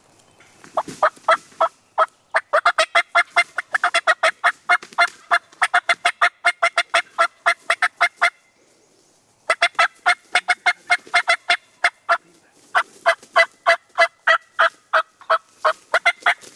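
Turkey calling: long runs of short, sharp clucks, about eight a second, breaking off about eight seconds in and again briefly near twelve seconds.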